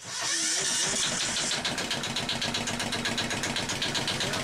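Yanmar 7 hp single-cylinder marine diesel running steadily, with a rapid even beat.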